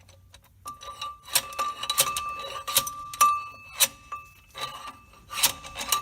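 Metal tools clinking and knocking as a slide hammer with a bolt on its end is worked into a worn-out pilot bushing: a string of sharp metallic clicks and knocks over a steady ringing tone.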